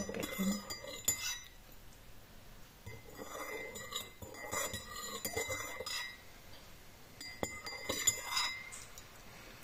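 Cutlery clinking and scraping against a plate in several short bursts of clicks, with pauses between them.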